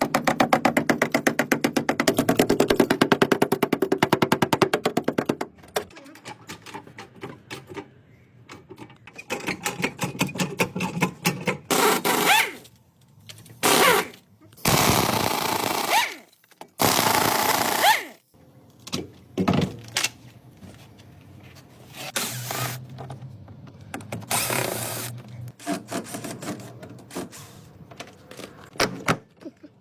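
Workshop tool noise in a series of short cuts: a fast, even mechanical hammering for about the first five seconds, then several brief bursts of loud rushing noise and scattered knocks from tools at work on a car.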